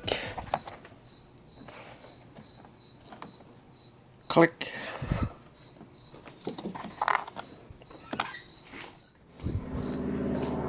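A steady, high-pitched chirping repeated two or three times a second, like a cricket, with scattered clicks and knocks; the loudest knock comes about four seconds in.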